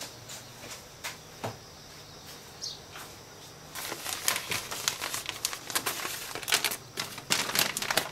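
Paper advertising flyer rustling and crackling as it is handled and shaken out, starting about four seconds in; before that only a few faint clicks.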